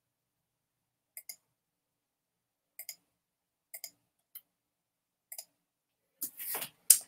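Computer mouse clicking: five short clicks, most of them doubled, at uneven intervals. Near the end comes a rustle and a sharp knock, which is the loudest sound.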